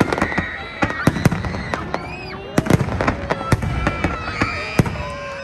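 Fireworks going off: an irregular series of sharp bangs, about a dozen in a few seconds.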